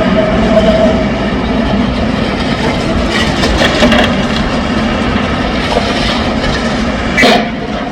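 Heavy demolition-site machinery running steadily with a low hum, rattling and clanking about three to four seconds in, and one loud bang near the end.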